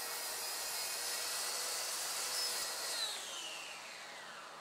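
Track saw running as it trims a thin veneer sheet, a steady whine over a rush of noise. About three seconds in it is switched off and the blade winds down in a falling whine.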